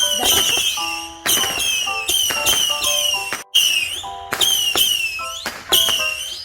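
Fireworks going off in quick succession, about two sharp cracks a second, most followed by a short high whistle that falls in pitch.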